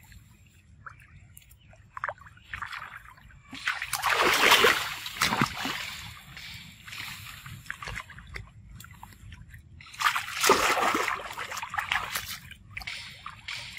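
Water splashing and sloshing as macaques swim and dive in a pool, with two louder bouts of splashing, about four seconds in and again about ten seconds in, and lighter sloshing between.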